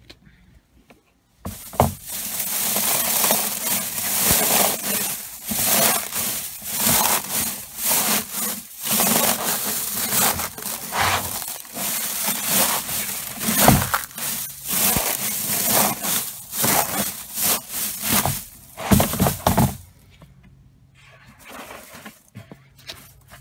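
A rubber boot stomping on dried mustard plants in a plastic bin, the brittle stems and seed pods crunching and crackling with each tread as the seed is threshed out. The crunching starts about a second and a half in, comes in repeated surges, and stops a few seconds before the end.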